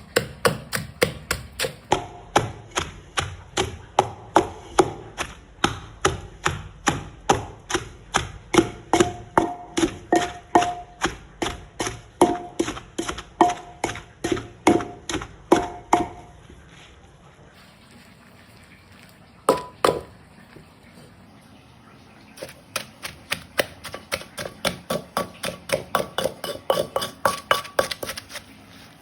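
Knife chopping food on a cutting board in a steady rhythm of about two to three chops a second. The chopping stops about 16 seconds in, with one lone chop a few seconds later, and resumes about 22 seconds in.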